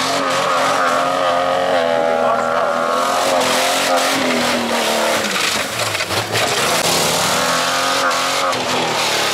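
Off-road race 4x4 engines revving hard, the engine note climbing and falling off twice, over a broad rush of tyre and terrain noise.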